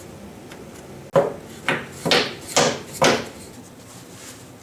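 Five sharp knocks in quick succession, about two a second starting about a second in, each with a short ring, like a hammer tapping on metal parts.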